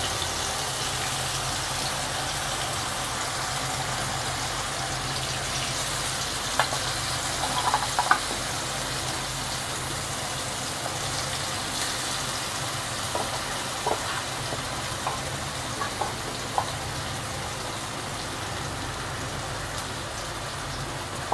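Marinated rohu fish steaks sizzling steadily in hot ghee and mustard oil in a kadai, with a few faint clicks as more pieces are laid into the pan.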